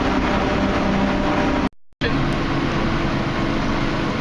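Motorboat engine running steadily under way, with wind and water noise over it. The sound cuts out completely for a moment a little under two seconds in, then resumes at a slightly different pitch.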